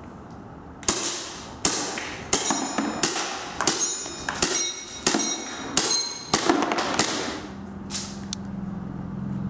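Gas-powered CZ75 shell-ejecting airsoft pistol firing a string of single shots, each a sharp pop with the slide cycling, about one every half second to a second, some followed by a brief light ringing from the ejected shells. A faint steady hum follows near the end.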